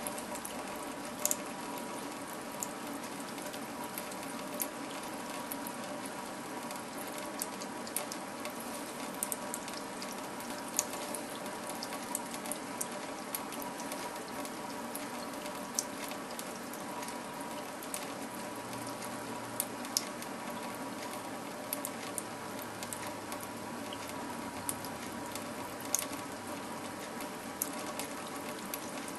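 A thin stream of tap water running into a stainless steel kitchen sink: a steady trickling hiss, with scattered sharp clicks.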